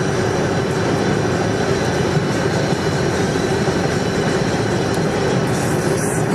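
Steady road noise inside a car at freeway speed: the tyres on the pavement and the wind against the body make an even roar with a faint steady hum under it.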